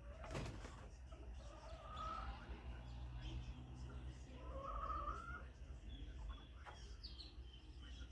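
Chickens calling softly, with two drawn-out calls about two seconds in and near five seconds, and faint chirps near the end. A sharp click sounds just under half a second in, over a steady low hum.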